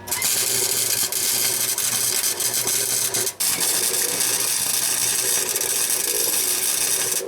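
Wire-feed welder arc crackling and hissing as steel exhaust pipe is welded, in two runs with a brief break about three and a half seconds in. Each run starts and stops abruptly.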